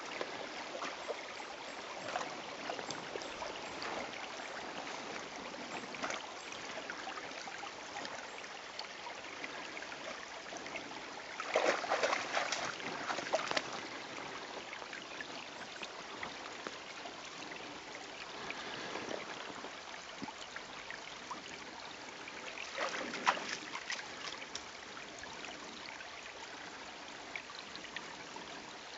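Small forest stream trickling steadily, with louder bursts of splashing about twelve seconds in and again about twenty-three seconds in as an Akita inu wades through the shallow water.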